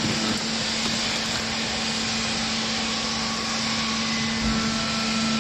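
A machine running steadily: a constant hiss with a low, even hum beneath it.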